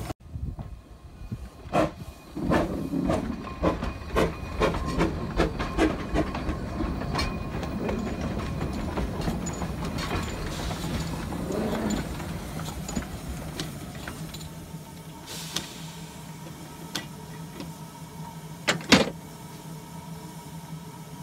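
Baldwin-built 4-6-2 narrow-gauge steam locomotive with irregular clanks and knocks over a rumble for the first half. Then it settles to a steady steam hiss and hum, with one sharp clank a couple of seconds before the end.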